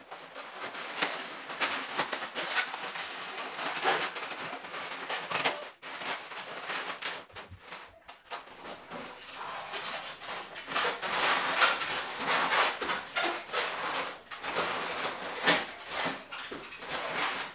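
Inflated latex modelling balloons rubbing and squeaking against each other as two twisted-balloon flowers are pushed and twisted into place on a balloon arrangement. The squeaks and rubs come irregularly and are busiest about two-thirds of the way through.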